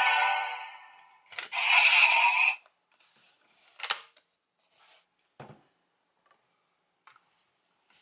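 DX Oneness Raise Buckle toy's electronic sound effect playing through its small speaker and fading out, then a click about a second and a half in sets off another short burst of its sound. After that, only scattered soft clicks and knocks of the plastic toy being handled.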